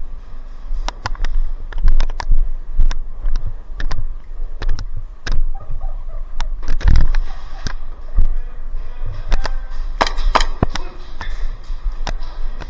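Airsoft guns firing: sharp pops in irregular single shots and quick pairs, loudest about two, seven and ten seconds in.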